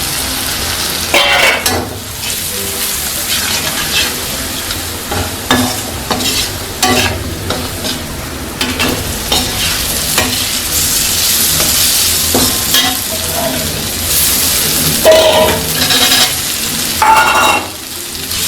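Onion and spices (chilli, turmeric, garam masala, salt) sizzling as they fry in oil in a pan, stirred with a spatula that scrapes the pan in short strokes, several of them louder about a second in and near the end.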